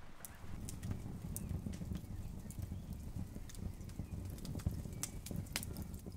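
Wood fire burning in a stove, crackling and popping over a low steady rumble.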